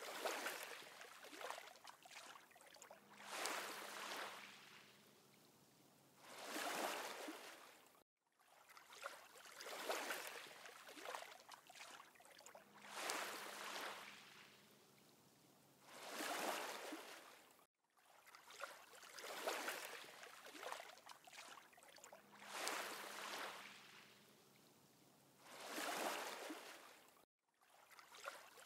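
Rushing water that swells and fades in slow surges, about three every ten seconds. The same short recording loops, with a brief silent break between repeats.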